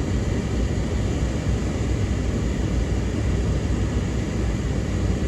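Steady low rumble of a car moving slowly, heard from inside the cabin.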